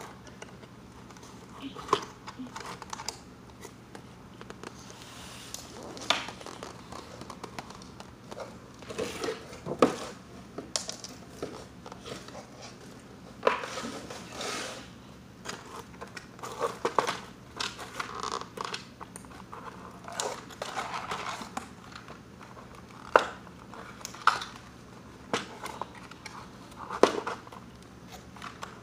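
Cardboard box and packaging rustling and crinkling as a toy playset is unpacked by hand, with scattered sharp clicks and knocks of pieces being handled.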